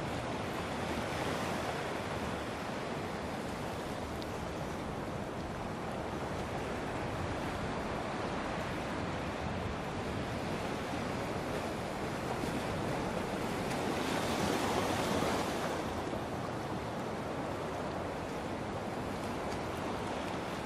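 Sea waves washing against a rocky shore: a steady rushing surf noise that swells briefly about two-thirds of the way through.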